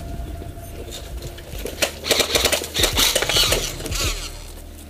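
Clatter and rustle of a person setting off on foot, with footsteps and kit rattling. A dense run of loud clicks comes from about two to four seconds in, then eases off.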